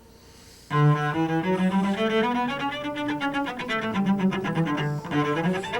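Solo cello playing a scale in short, separate bow strokes: the launch-stroke scale bowing built from a small rubbing détaché. It starts about a second in, climbs, comes back down, and turns upward again near the end.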